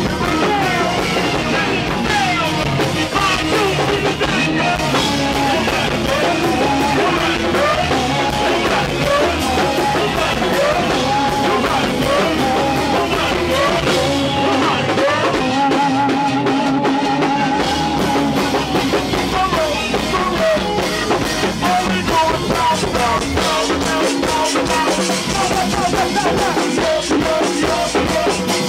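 Go-go band music played live: a steady drum and percussion groove with voices singing or chanting over it.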